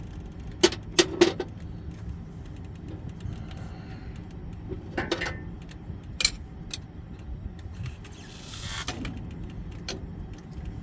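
Sharp metallic clanks and knocks, three in quick succession about a second in and a few more around the middle, with a scraping rub near the end: a pry bar levering the Lovejoy coupler along the grinder's shaft.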